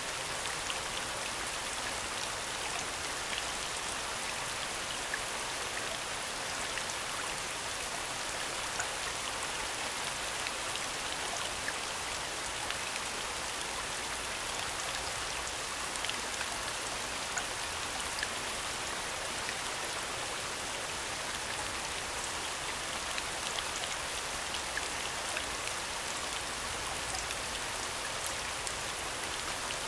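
Steady falling rain from a recorded rain soundscape: an even hiss of rainfall with scattered individual drops ticking through it.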